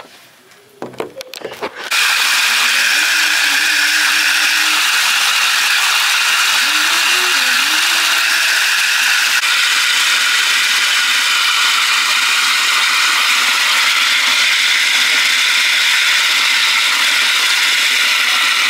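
Bath tap running full into a tub of bubble bath: a loud, steady rush of water that starts suddenly about two seconds in.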